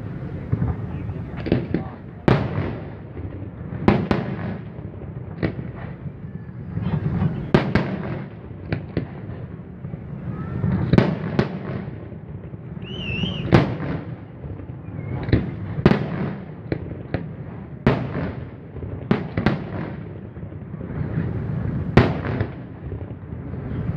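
Aerial fireworks going off in a steady run of sharp bangs, one every second or two.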